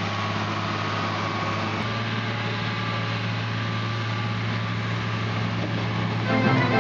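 Ford TW-25 tractor running steadily with a constant low engine hum, driving a McHale F550 round baler while baling silage. Brass music comes in near the end.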